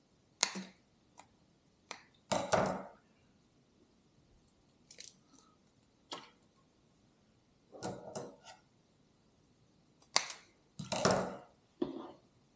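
Scattered short clicks, knocks and brief rustling clatters from hands handling things, about a dozen in all with quiet between; the longest clatters come about two seconds in and near the end.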